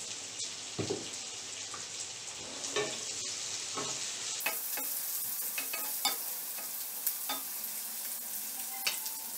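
Chopped shallots, chillies and curry leaves sizzling in hot oil in a coated kadai, with a wooden spatula stirring them and clicking and scraping against the pan: onions being sautéed.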